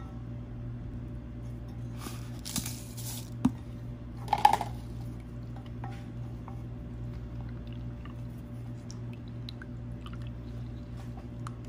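A silicone spatula stirring a liquid soy-sauce and pineapple-juice marinade with powdered spices in a glass bowl: soft sloshing and scraping, with a couple of louder swishes in the first five seconds and faint clicks of the spatula against the glass. A steady low hum runs underneath.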